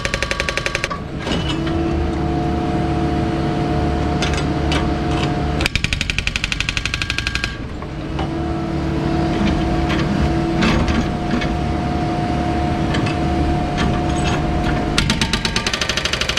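Excavator-mounted hydraulic breaker hammering road surface in rapid bursts: briefly at the start, for about two seconds in the middle, and again near the end. Between bursts the excavator's engine and hydraulics run steadily with a constant whine.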